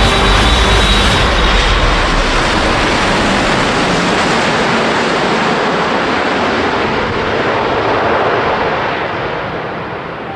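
Twin-engine jet airliner passing low overhead: a steady rush of jet engine noise that grows duller and fainter over the last few seconds as it moves away.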